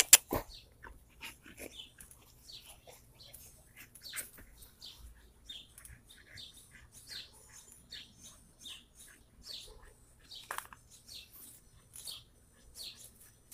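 Two young bully-breed dogs tussling over a rope tug toy: scattered short scuffling and dog noises throughout, with one sharp knock right at the start.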